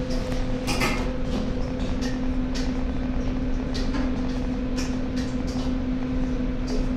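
Steady machine hum in a kitchen, with scattered light clicks and clinks of cooking utensils.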